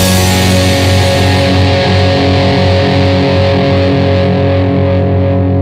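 Instrumental rock track ending on a sustained distorted electric guitar chord that rings out after the drums' last hit, its bright top slowly fading away.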